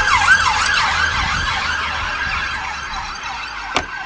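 Police siren sounding a fast yelp, a rising-and-falling wail about three times a second, growing slightly fainter. A single sharp click near the end.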